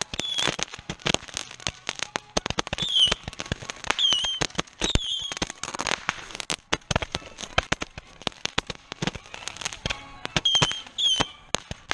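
Fireworks going off at close range: rapid, irregular firecracker and rocket bangs and pops, dozens of sharp cracks close together, with several brief high squeals mixed in.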